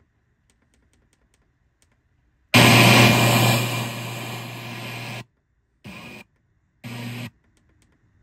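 Sony FH-707R FM tuner being stepped up the dial through its speakers. It is silent while muted, then a burst of static hiss with a low hum starts about two and a half seconds in, fades over a couple of seconds and cuts off, followed by two short blips of sound between stations.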